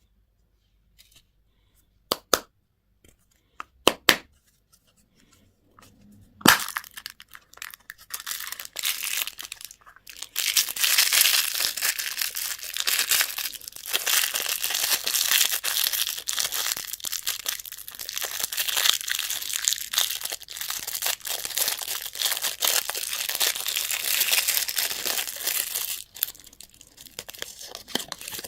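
Candy wrapper being crinkled and torn open by hand: a few sharp clicks at first, then from about six seconds in a long stretch of dense crinkling and tearing that dies down near the end.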